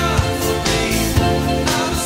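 Pop-rock mashup music with a steady beat of drum hits about twice a second over a sustained bass line.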